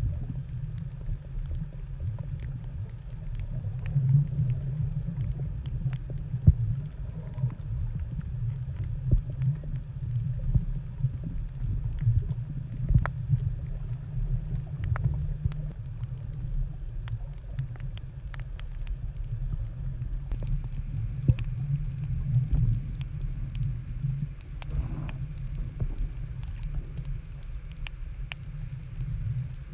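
Underwater sound through a camera in a waterproof housing while snorkeling: a steady muffled low rumble with scattered sharp clicks and crackles.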